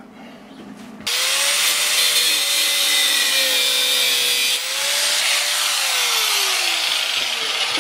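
Angle grinder starting about a second in and cutting through the protruding end of a mounting bolt, a steady whine with a hiss of grinding metal. About two-thirds of the way through the cut ends and the motor winds down in pitch.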